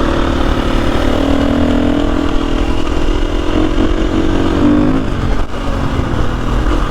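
Single-cylinder four-stroke engine of a KTM 350 EXC-F trail bike running under way, its note rising and falling with the throttle.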